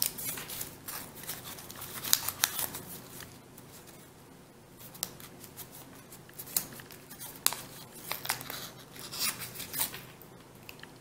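Folded origami paper modules rustling and crinkling in the hands as they are slotted together and creased into a mandala: an irregular scatter of short, crisp paper rustles and clicks.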